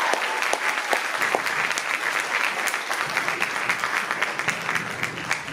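Audience applauding, a dense clatter of many hands clapping that slowly dies down.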